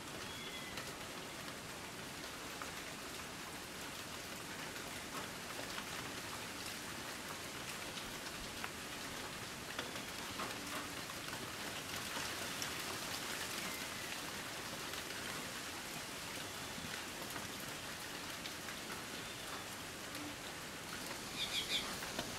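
Steady rain falling on tree foliage: an even hiss with individual drops hitting the leaves. A quick run of high chirps near the end.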